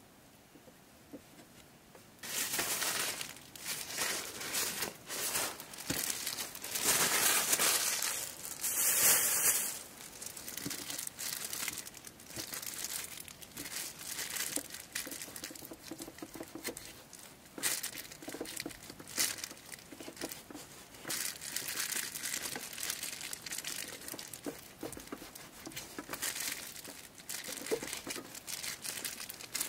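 Crinkling and rustling of something being handled close by, starting about two seconds in, loudest a few seconds later and then continuing more softly with small crackles.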